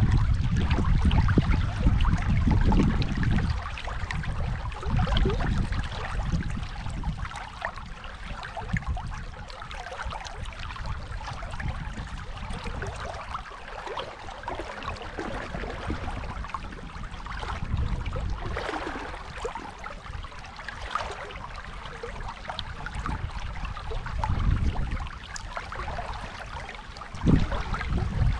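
Dunajec river water rushing steadily, with bouts of low rumble at the start and again near the end.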